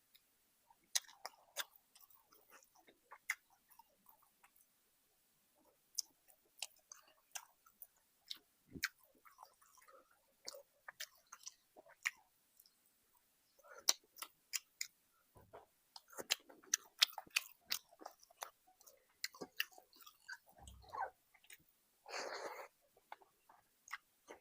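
Close-miked chewing of a rice-and-curry meal: irregular wet mouth smacks and small crunches, with a longer rush of noise near the end.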